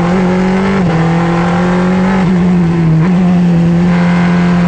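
Engine of a Wolf sports-prototype race car heard from on board, running hard at about 5,000 rpm in third gear while accelerating. Its pitch holds nearly level, with a few brief dips.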